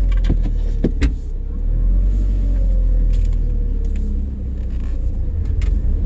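Inside the cabin of a 2001 Audi TT quattro, the 1.8-litre turbo four-cylinder runs with a steady low rumble and a faint, gently wavering whine while the car turns tightly at low speed. A few light clicks come in the first second and a half. No Haldex grinding is heard: the grinding was cured by fresh Haldex coupling oil and a new filter.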